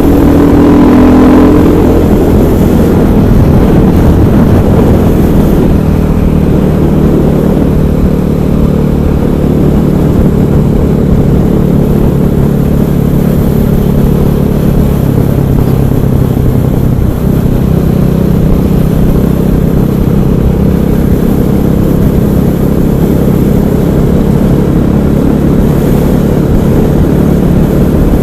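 KTM 500 EXC supermoto's single-cylinder four-stroke engine running under way at a steady speed, with a brief burst of revs at the start.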